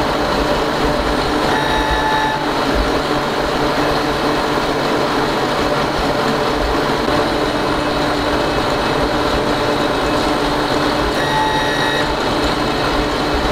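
Concrete 3D printer running steadily as it extrudes a wall, a continuous mechanical hum. A short electronic beep sounds twice, about two seconds in and again about eleven seconds in.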